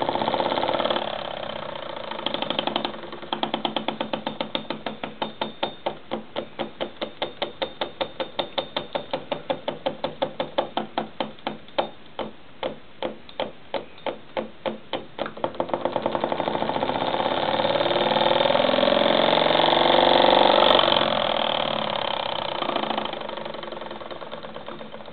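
Homemade solenoid engine, built from a starter-motor solenoid and automotive ignition points, running with its throttle lever worked by hand. It clicks quickly at first, settles to a steady clatter of a few strokes a second, and slows further. About two-thirds of the way through it speeds up into a continuous buzz, which is loudest shortly after, then slows and fades near the end.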